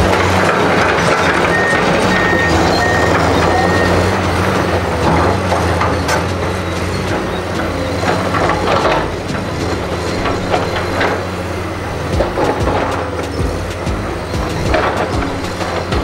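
Komatsu PC210 hydraulic excavator's six-cylinder diesel engine running steadily under load, with scattered knocks and clanks. A machine's warning alarm gives a quick series of short high beeps about two seconds in.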